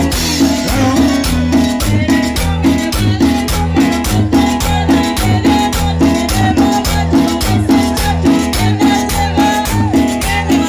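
Live band playing Latin dance music without vocals: keyboard melody, timbales and shaken or scraped hand percussion over a steady, bass-heavy beat.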